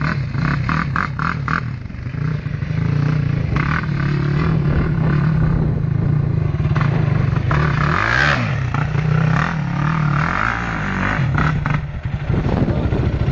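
Yamaha YFZ450 quad's single-cylinder four-stroke engine running and revving as it is ridden on loose sand, the engine pitch rising and falling a few times around the middle. Loose grit clatters from the tyres as it spins.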